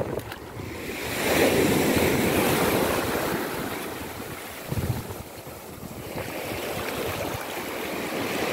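Small sea waves breaking and washing up over a pebble shoreline, surging loudly about a second in, easing off, then building again near the end. A brief thump comes about halfway through.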